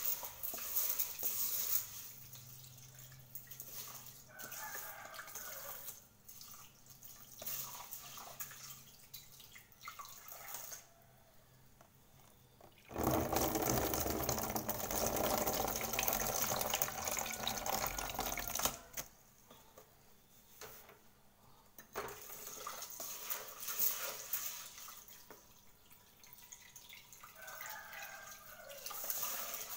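Rice being rinsed in a metal pot under a running kitchen tap, with water splashing into the pot and the grains being swished by hand. About halfway through, a louder rush lasting several seconds as the cloudy rinse water is poured off into the sink.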